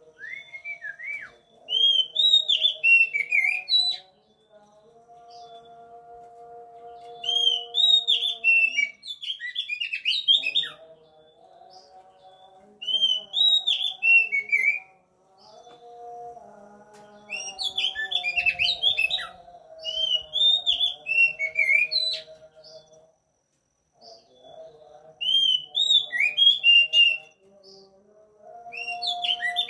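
Oriental magpie-robin singing: loud phrases of a few seconds each made of quick rising and falling whistles and chirps, repeated about six times with short pauses between. The kind of song keepers use to bring magpie-robins into breeding condition. A fainter steady tone hums underneath.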